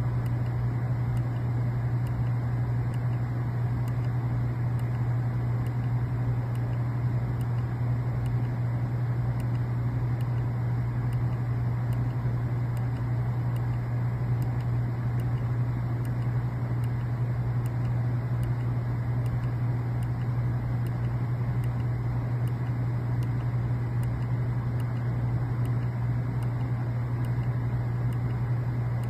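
Glass door merchandiser refrigerator running with a steady low hum.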